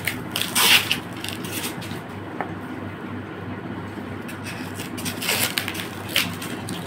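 Cardboard packaging and a polystyrene foam block being handled and pulled apart, rubbing and scraping against each other. There are louder scrapes in the first second and again between about five and six seconds, and quieter handling in between.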